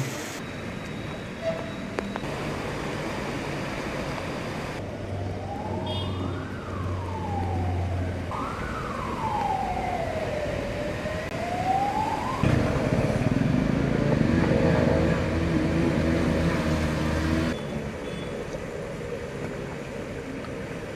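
A siren wails in slow rising and falling sweeps from about five to twelve seconds in, over a steady wash of traffic and water noise from flooded streets. After it, a vehicle engine runs louder for a few seconds.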